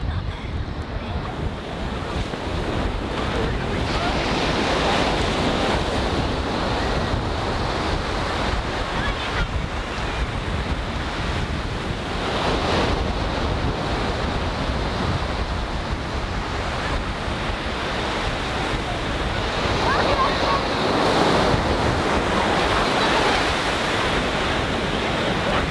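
Ocean surf breaking and washing up a sandy beach, swelling and easing every several seconds, with wind rumbling on the microphone.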